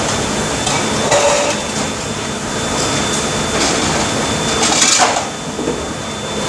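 Steady machinery noise of a commercial dish room, with scattered clatters of dishware and racks; the loudest clatter comes about five seconds in.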